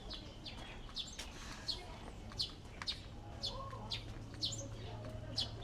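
Songbird calling with a run of short, sharply falling chirps, about two a second.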